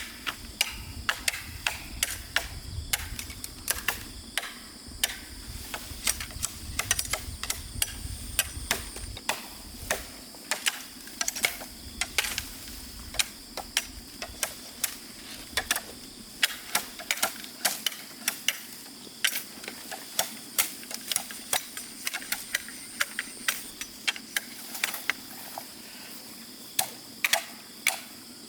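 Irregular sharp clicks and knocks, several a second, over a steady high-pitched whine, with a low rumble that stops about a third of the way in.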